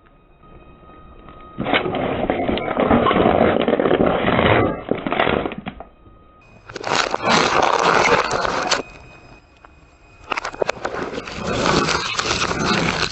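Crunching and crackling of objects being crushed, in three separate bursts of a few seconds each.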